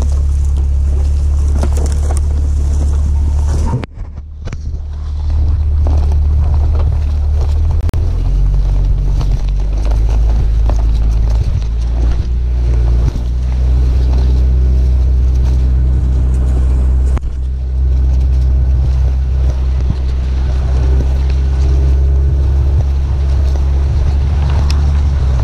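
BMW Z4 roadster driving across a grass lawn, heard from a camera mounted low on its body: a steady low engine and exhaust drone mixed with wind rumbling on the microphone, with a brief dip about four seconds in.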